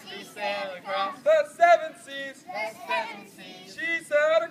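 A group of young children singing a song together in short phrases, with the counselors' voices mixed in.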